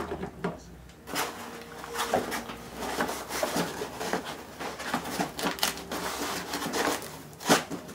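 Packaging being handled and pulled apart while unboxing: continuous rustling and scraping with many small clicks, and one sharp knock near the end.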